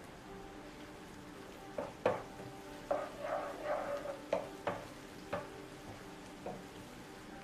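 Wooden spatula stirring shrimp and chopped onion in a hot non-stick frying pan: sizzling, with several sharp knocks and scrapes of the spatula against the pan, starting about two seconds in and dying away near the end.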